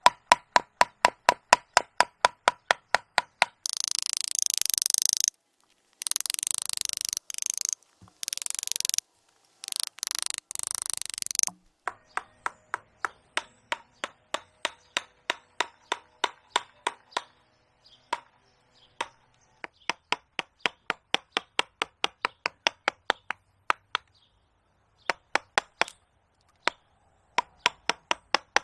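Mallet driving a carving gouge into a tree trunk: quick, regular sharp taps, about three to four a second. From about four to eleven seconds in the taps give way to stretches of steady hissing, scraping noise that start and stop abruptly.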